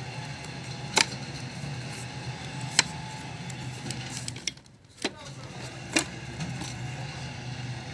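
Four sharp clicks and taps of plastic parts and screws being handled during disassembly of a robot vacuum, over a steady low hum.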